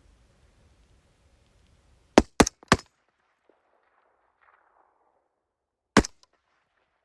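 Rifle shots at coyotes: three sharp cracks in quick succession about two seconds in, then one more single shot near the end.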